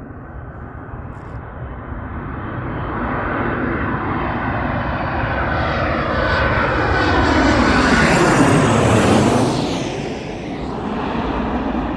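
Twin-engine jet airliner on final approach passing low overhead, its jet engine noise swelling to a peak about eight to nine seconds in, with a falling whine as it goes by, then easing off.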